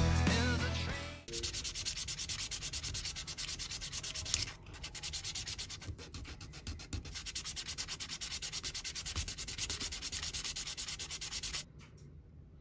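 Background music ends about a second in. Then comes quick back-and-forth hand sanding of a small diecast part, about six even strokes a second, with a short break near the middle. It stops about a second before the end.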